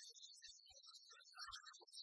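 Near silence, with very faint music.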